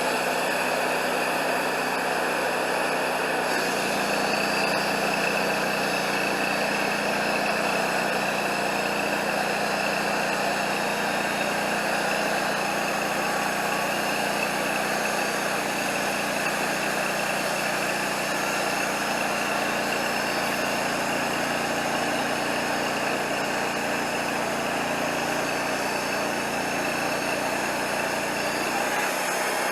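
Wood-Mizer LT40 portable band sawmill running steadily, its engine and band blade sawing a log into slabs. The engine note shifts about four seconds in and shifts back near the end.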